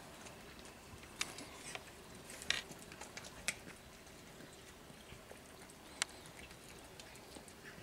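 Cats eating dry kibble off a concrete step: a few sharp, scattered crunches and clicks, the loudest about six seconds in, over a faint steady hiss.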